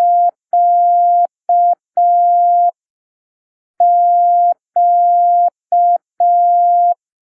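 Morse code tone sending the letter Q, dah-dah-di-dah, twice with a pause of about a second between. It is a single steady beep keyed on and off.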